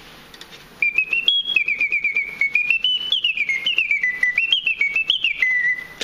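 Antique German singing-bird automaton whistling its birdsong: a single piping note that warbles and slides up and down in quick steps, with the rapid clicking of its clockwork mechanism under the song. It starts about a second in and cuts off abruptly near the end.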